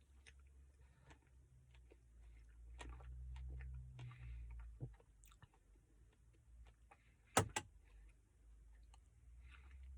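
Close-miked mouth sounds of someone eating ice cream: soft wet clicks, with a low rumble swelling a few seconds in and two sharp clicks in quick succession past the middle.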